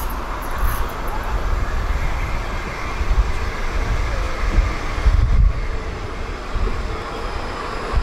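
Tram approaching and pulling into a stop, its wheels rolling on the rails.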